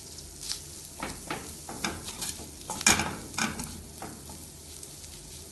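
Wooden spatula scraping and knocking against a metal kadai while mashing boiled egg yolks into an onion-tomato masala and stirring it, with a faint sizzle underneath. The sharpest scrape comes about three seconds in.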